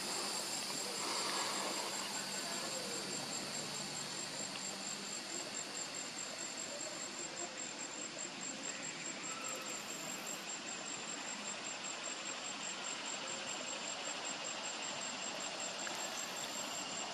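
Steady chorus of insects: a high, rapidly pulsing trill over a continuous shrill drone.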